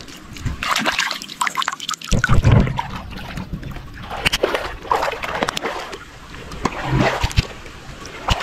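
Shallow muddy water splashing and dripping, with irregular sloshes and trickles and a few dull low thumps, the loudest about two seconds in.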